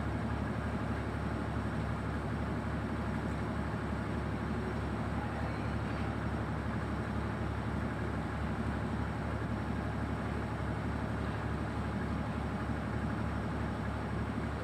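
Engine running steadily: an even, low drone with a fast, regular pulse.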